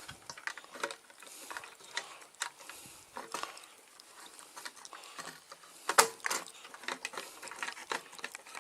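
Irregular clicks and taps of a refrigerator control board being pushed and snapped into its mounting clips, with the loudest click about six seconds in.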